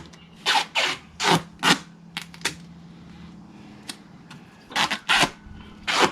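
Duct tape being pulled off the roll in quick, short ripping strips, about ten rips in two bunches with a pause in the middle, over a faint steady low hum.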